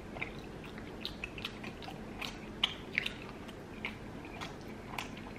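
People chewing food close to the microphone, with many short, scattered mouth smacks and clicks; the woman is eating a mouthful of yam.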